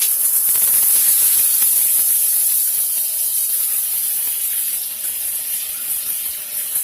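Shower head spraying water in a steady, even hiss.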